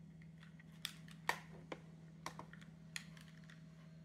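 Plastic buttons on a Grundig portable CD player clicking as they are pressed, about six sharp clicks spread over a couple of seconds, the loudest about a second in. A steady low hum runs underneath.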